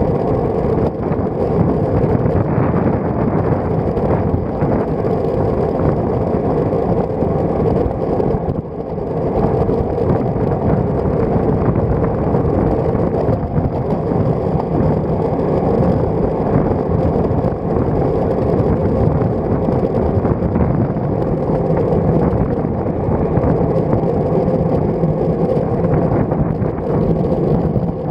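Steady rush of wind and road noise from a road bicycle being ridden, heard through a microphone on the bike's handlebar stem; it dips briefly about eight seconds in.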